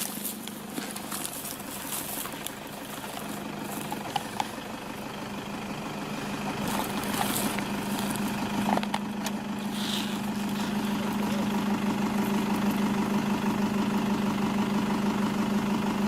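A motor engine running at a steady idle, growing louder through the second half, with a few faint clicks and rustles.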